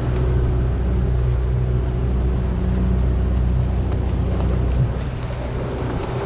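Boat's outboard motor running slowly, a steady low hum, with wind on the microphone; the motor drops in level a little about five seconds in.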